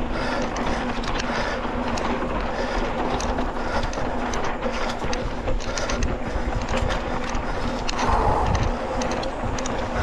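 Downhill mountain bike rolling fast over a dirt trail: tyre noise on the ground with a constant rattle and clatter of small knocks over the bumps.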